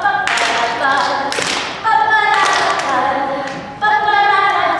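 A group of children singing a song together in held, stepped phrases, with a few sharp taps at the starts of phrases.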